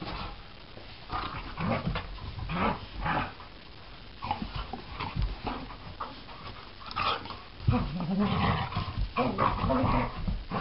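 Two dogs, a greyhound and a yellow Lab-type mix, play-wrestling: scuffling and dog vocal noises in irregular bursts, busiest and loudest over the last three seconds.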